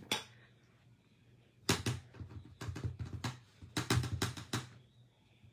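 Clear acrylic stamp block tapped repeatedly on an ink pad: a single click at the start, then a run of light taps and clicks between about two and four and a half seconds in.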